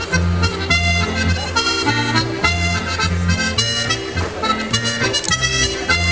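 Accordion playing a lively folk dance tune, with a steady alternating bass-and-chord accompaniment under the melody.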